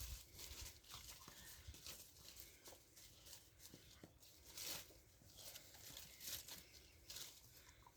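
Near silence with faint, scattered rustling and a few soft brief scuffs.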